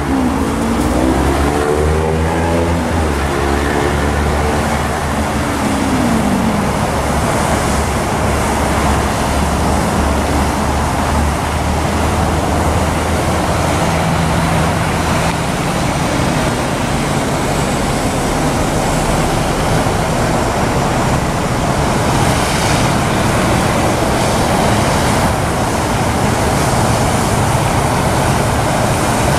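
Steady road-traffic noise: a continuous rumble and hiss with a low engine hum, and a vehicle's pitch rising and falling during the first several seconds.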